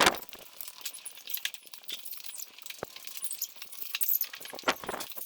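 Light metallic clinking and clicking of metal tools and parts being handled, with a knock at the start and a few sharper clicks near the end.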